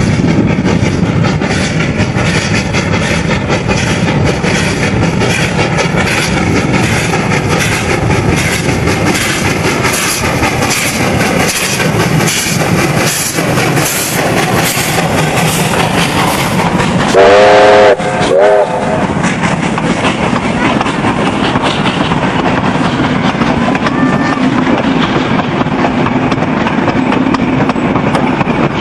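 Victorian Railways J-class 2-8-0 steam locomotive J549 working a passenger train past at close range, with steady, evenly spaced exhaust chuffs. A little over halfway through it sounds its steam whistle twice, a longer blast then a short one. Then the wooden carriages run by on the rails.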